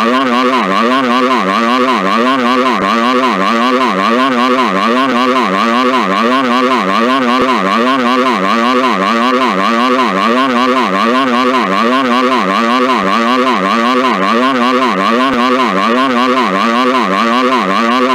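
Phone emergency alert tone sounding loudly and without a break: a steady high tone over a lower tone that warbles up and down over and over.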